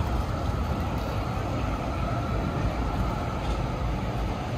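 Steady city street traffic noise: a continuous low rumble with a hiss over it, no single vehicle or event standing out.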